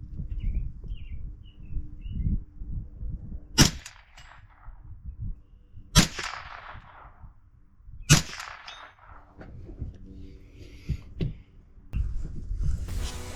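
Three rifle shots about two seconds apart, each sharp crack trailing off in a ring. Guitar music comes in near the end.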